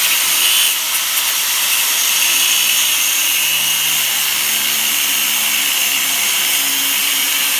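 Power grinder cutting steel, running steadily under load.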